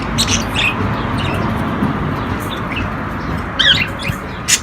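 Small caged parrots (budgerigars, lovebirds and cockatiels kept together) give short chirps and squeaks at intervals, the loudest a quick double chirp about three and a half seconds in, over a steady low hum. A sharp click comes just before the end.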